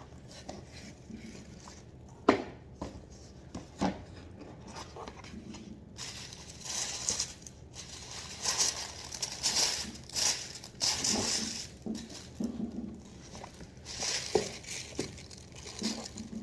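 Cardboard gift box being opened and its paper packaging handled: a couple of sharp knocks in the first few seconds, then bursts of rustling and crinkling from about six seconds in.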